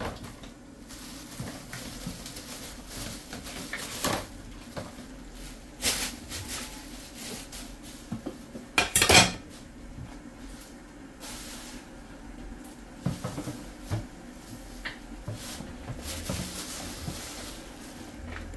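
Kitchen clatter of cooking pots, lids and utensils being handled: scattered knocks and clinks, with a loud cluster of clatters about nine seconds in, over a steady low hum.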